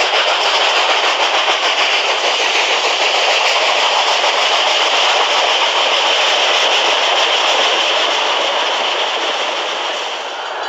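Model train passing close by: a steady rattle of wheels rolling on the track, easing a little near the end.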